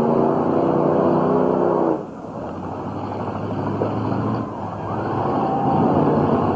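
Demolition-derby cars' V8 engines revving hard under load. The sound drops off suddenly about two seconds in, then engines keep running at lower revs and build again.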